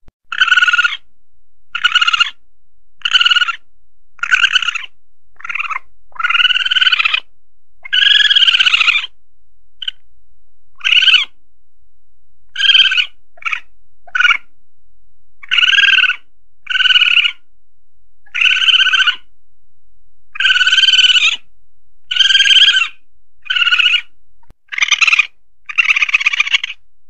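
Asian palm civet calls played as a hunting lure: short, shrill calls repeated about twenty times, roughly one every second or two, some drawn out longer than others.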